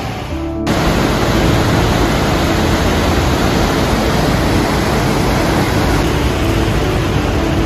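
Loud, steady rushing of water, like a mountain river or waterfall, stepping up in level just under a second in.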